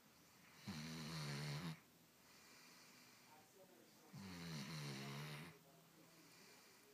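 A sleeping hound snoring. There are two loud snores, each about a second long and roughly three and a half seconds apart, with fainter breaths between them.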